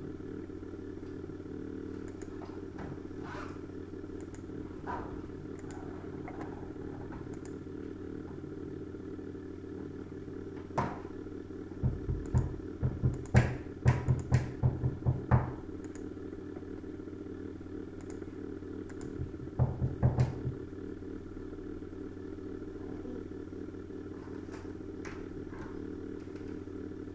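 A steady low hum with scattered faint clicks, broken about twelve seconds in by a quick run of dull, low thumps lasting some three seconds, and again by a briefer run around twenty seconds.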